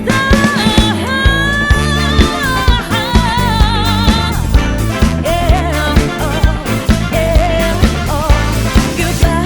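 A band playing a funk-pop song with a steady beat, and a singer holding long, wavering notes over it.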